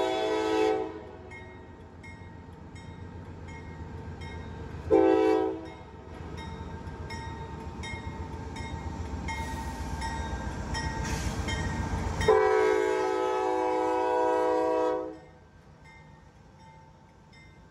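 Norfolk Southern freight locomotive's air horn blowing for a grade crossing: a long blast ending under a second in, a short blast about five seconds in, and a long blast from about twelve to fifteen seconds in. The rumble of the approaching train builds in between, and the sound drops off abruptly after the last blast.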